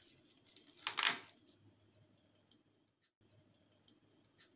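Flexible corrugated plastic conduit being handled and a wire pushed into it. There is a short scraping rustle about a second in, then light scattered clicks.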